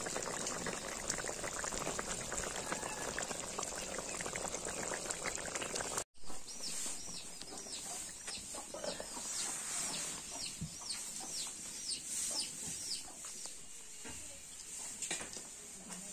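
Fish and tomato curry bubbling and crackling hard in a wok over a wood fire. After a cut about six seconds in, a bird chirps over and over, short falling calls about twice a second, for several seconds.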